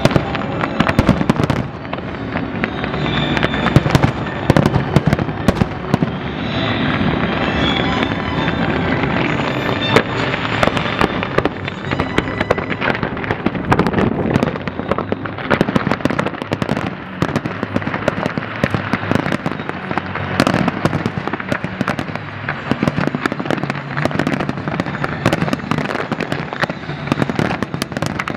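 Large fireworks display: aerial shells and low-level fireworks going off in a dense, unbroken barrage of sharp bangs and crackling.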